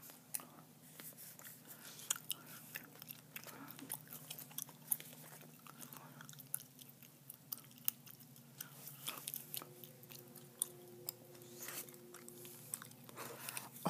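Gum chewing close to the microphone, with many irregular sharp clicks, while paper sticker sheets are handled.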